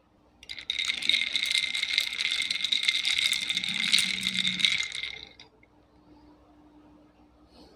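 Metal straw stirring ice in a glass mason-jar mug: a fast, continuous clinking rattle that lasts about five seconds and stops abruptly.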